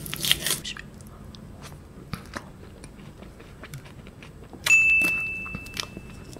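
Mouth sounds of a person eating soft, half-melted raspberry yogurt ice cream: a bite or slurp at the start, then quiet chewing with small wet clicks. Near the end a sharp tap is followed by a single high ringing tone.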